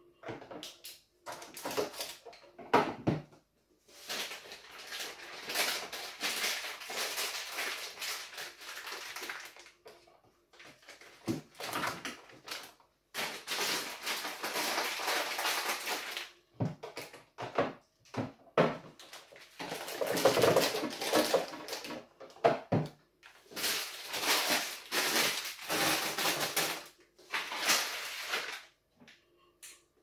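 Plastic fridge storage containers and food packets handled and set onto glass fridge shelves: scattered knocks and clicks, with several longer stretches of rustling.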